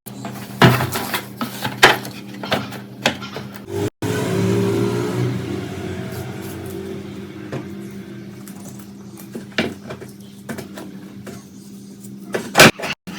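Metal parts clinking and knocking as the rusty fan is handled and worked on with hand tools, several sharp hits in the first three seconds and a pair near the end, over a steady low hum.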